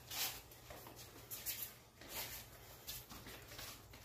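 Two men sparring on a concrete floor: a run of short, sharp hissing bursts every half second or so, from quick exhales with the strikes and feet shuffling on the concrete.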